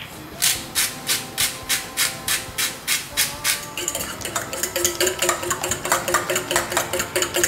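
A fork whisking beaten egg in a stainless steel bowl, the tines clinking and scraping against the metal in a quick, regular rhythm of about four strokes a second that speeds up about halfway through.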